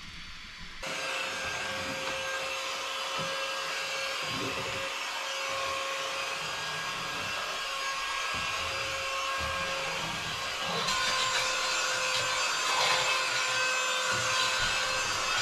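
Cordless vacuum mop switches on about a second in and runs steadily with a constant hum. It gets louder about eleven seconds in.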